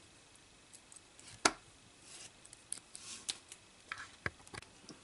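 Faint handling sounds of alligator-clip test leads being unclipped from a resistor: one sharp click about one and a half seconds in, then a scatter of small clicks and brief rustles.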